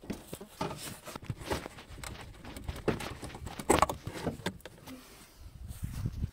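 Irregular plastic clicks and knocks as a Seat Leon Mk3's front bumper is pulled free of its clips and a wiring connector behind it is unplugged, with the sharpest snap a little before four seconds in.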